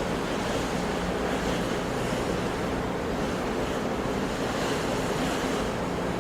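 Sea surf: waves washing in a steady, unbroken rush of noise.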